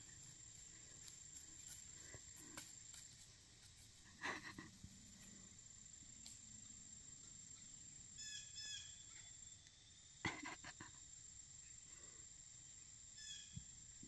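Faint birds calling: a short phrase of several quick chirps, repeated about five seconds apart, over a steady high insect drone. Two brief sharp sounds, about 4 and 10 seconds in, stand out as the loudest.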